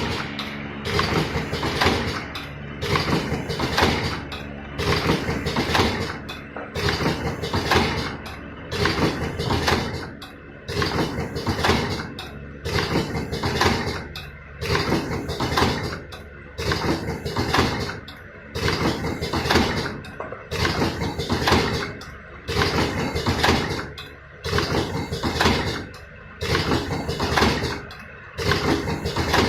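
Vertical automatic cartoning machine running through its packing cycle, with compressed-air actuators and mechanisms clacking and hissing. The cycle repeats about every two seconds.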